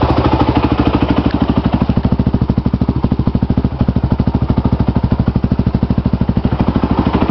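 Honda TRX450R ATV's single-cylinder four-stroke engine idling steadily through a Yoshimura aftermarket exhaust, each firing pulse distinct in a fast, even chug.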